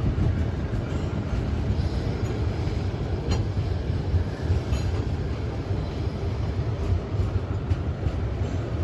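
Freight train rolling past: a steady rumble of wheels on rail, with a couple of faint clicks partway through.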